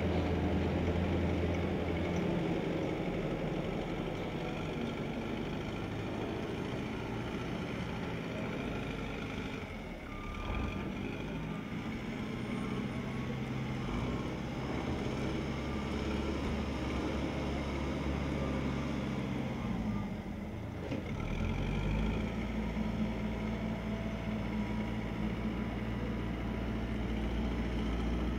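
Backhoe loader's diesel engine running as it works, with its note changing about ten seconds in and again about twenty seconds in.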